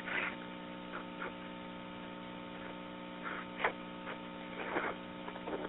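Steady electrical hum on a 911 telephone line recording, with a few faint, brief sounds on the line.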